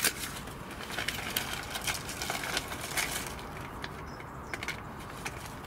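Paper seed packet of broad beans rustling and crackling as it is handled and reached into, with small irregular clicks from the dry seeds. The crackling is busiest in the first few seconds and thins out after.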